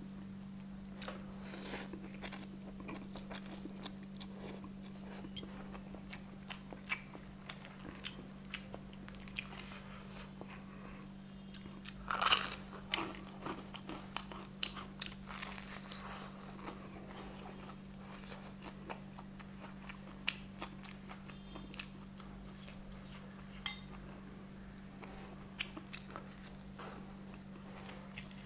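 Close-miked eating: chewing and crunchy bites of noodles and crispy fried chicken legs, in many short crackles, loudest about twelve seconds in. A steady low hum runs underneath.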